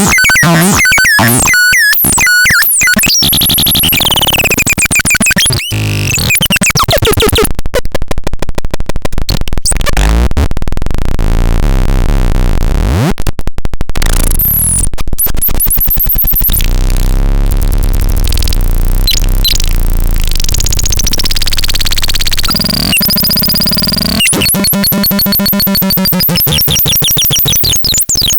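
Electronic synthesizer, the LARPEL C 15, playing harsh noisy textures. Glitchy stuttering bursts give way to a fast buzzing pulse, then a low drone with pitch sweeps rising and falling over it, and near the end a fast warbling tone.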